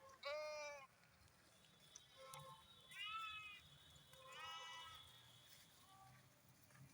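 Sheep bleating: three clear bleats about a second or more apart, with a few fainter short calls between them.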